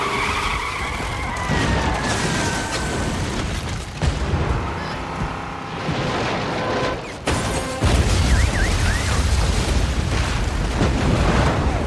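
Film soundtrack of an earthquake disaster: a deep continuous rumble with booms and crashes, and music underneath. A high tone slides down during the first few seconds, and sharp impacts hit about four seconds in and again around seven to eight seconds, after which the rumble is at its heaviest.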